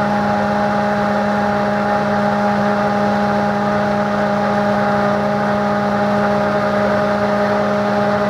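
Immersion blender motor running steadily with its blade submerged in a glass mason jar of oil-and-vinegar dressing, emulsifying it: a constant hum with a higher steady whine over it.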